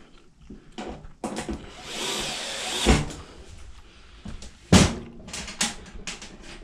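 Clatter of parts and tools being handled while a washing machine is put back together: scattered clicks and knocks, a scraping rush of noise about a second in that ends in a knock, and one sharp loud knock near the middle.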